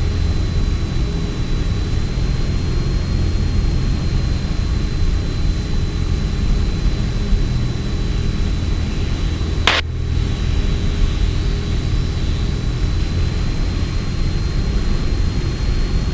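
Piper Arrow's piston engine and propeller running steadily, heard from inside the cockpit on approach with the landing gear down. A thin steady high whine sits over the drone, and a single sharp click comes about ten seconds in.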